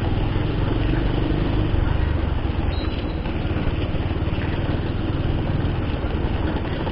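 Bajaj Pulsar 150's single-cylinder four-stroke engine running steadily as the motorcycle rides slowly over a rough, potholed road, picked up by a helmet-mounted camera.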